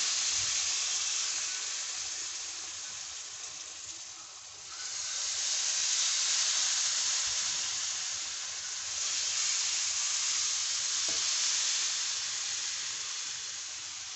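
Water added a little at a time to semolina and gram flour roasted in ghee, sizzling and hissing hard as it hits the hot pan. The hiss swells and fades three times, dipping about four seconds in and again near nine seconds, then tailing off near the end.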